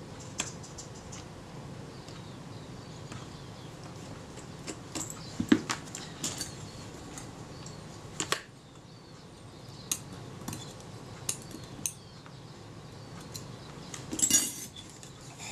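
Scattered small metallic clicks and clinks of a small screwdriver and tiny screws being handled against the metal body of a Kodak Retina II camera, the loudest around the middle and near the end, over a low steady background hum.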